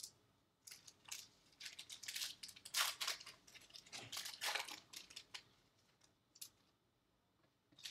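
Faint crinkling and rustling of trading cards and their packaging being handled, a quick run of short scrapes that stops about five seconds in.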